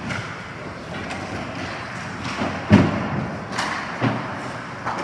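Ice hockey play along the boards: a few sharp thuds of players and puck hitting the boards and glass, the loudest a little under three seconds in, over steady rink noise.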